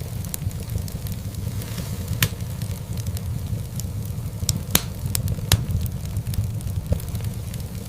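Wood fire in a fireplace burning with a steady low rumble and irregular crackling. A few sharp pops stand out, the loudest around the middle.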